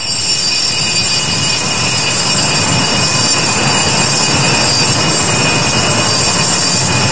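Altar bells shaken continuously in a steady, loud metallic jangle of many high ringing tones: the bells rung at the elevation of the host during the consecration.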